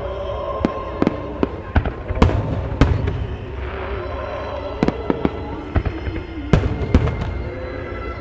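Japanese aerial firework shells from a starmine barrage bursting in a dozen or so sharp bangs at irregular spacing, over music playing underneath.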